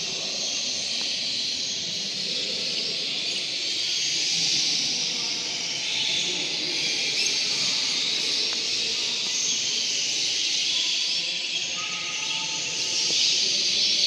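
Many caged canaries singing at once, blending into a steady, dense high-pitched chorus of twittering, over a low background murmur.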